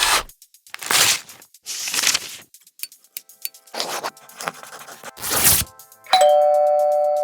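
A run of short scratchy, rustling sound effects: paper tearing, a page turning, scissors, pen strokes and cloth ripping. About six seconds in comes the loudest sound, a two-note ding-dong doorbell chime, high note then low, which rings on.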